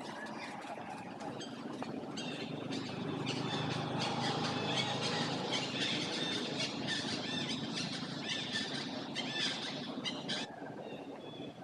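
A troop of monkeys squealing and squawking, many high-pitched calls overlapping, loudest in the middle and stopping abruptly near the end.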